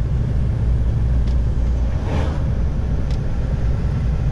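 Steady low engine and road rumble inside a long-haul truck's cab while driving on a snow-packed highway, with a brief swell of noise about two seconds in.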